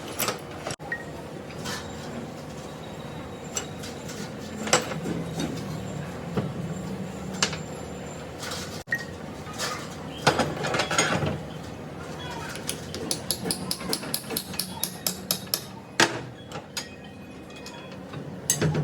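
Metal tools and parts clinking and knocking at irregular intervals during hand work on a hydraulic pump, with a quick run of light ticks in the second half.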